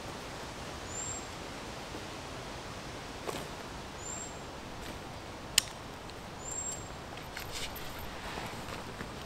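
Quiet woodland ambience with a steady outdoor hiss. A bird gives a short, thin, high chirp three times, a few seconds apart. A sharp snap sounds about halfway through, with a few faint rustles around it, fitting a twig breaking under a walker's boots on the forest floor.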